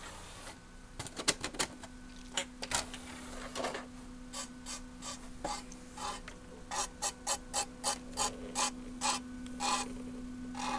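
CD player mechanism with a new Sony KSS213C laser pickup clicking as it tries to read the disc: scattered clicks, then a regular run of about three a second, over a steady hum. It fails to read the disc because the new pickup's anti-static shipping short was still soldered across its pins.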